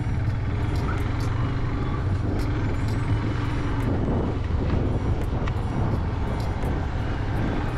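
Yamaha motorcycle engine running steadily while riding, a constant low rumble.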